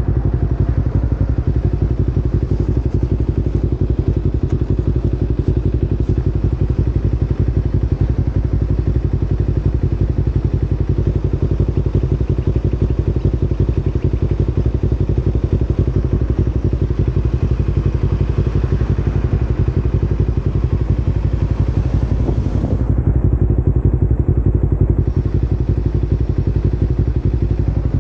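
Kawasaki Ninja 250R's parallel-twin engine idling steadily at a standstill.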